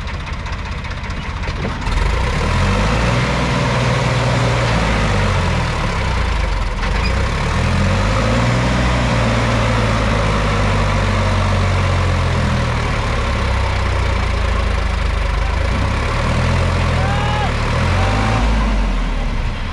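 Diesel tractor engines working hard under load, the revs rising and falling and the sound growing louder about two seconds in, as a Sonalika tractor bogged in mud with a loaded trolley is pushed free from behind by a second machine.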